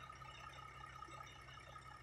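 Faint steady hum with a thin steady whine over it; nothing starts or stops.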